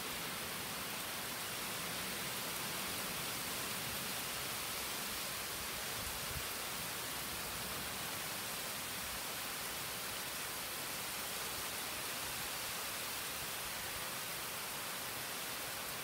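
Steady, even hiss of a summer rainstorm's rain falling.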